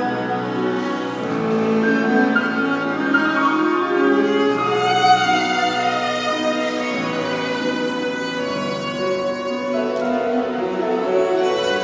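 Viola and grand piano playing classical music together: the viola bows a melody of held and moving notes over the piano accompaniment.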